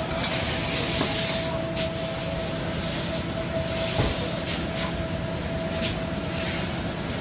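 Manila clams being shovelled and poured into sacks in repeated rattling swishes every second or two, with a few sharp shell clicks, over a machine running with a steady hum.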